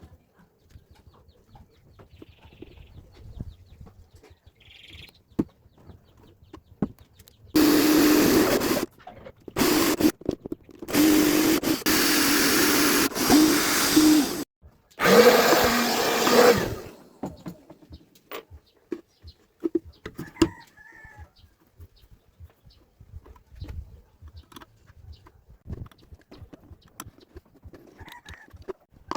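A power tool's motor running in four short bursts of one to three seconds each, with a steady hum under the noise. Between the bursts there are small clicks and handling knocks.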